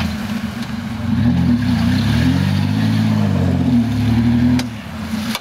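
Off-road 4x4's engine revving up and down as it works through a mud pit, the pitch rising and falling several times. A sharp click about four and a half seconds in.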